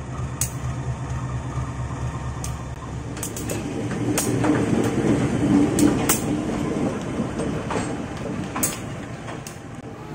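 CC 201 diesel-electric locomotive running at close range: a steady low engine hum, swelling to a louder rumble midway, with sharp clicks now and then.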